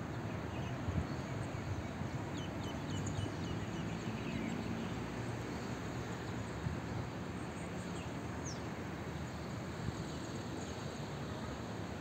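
Open-air ambience: a steady background hiss with a few faint, high bird chirps about three seconds in and a single chirp near nine seconds.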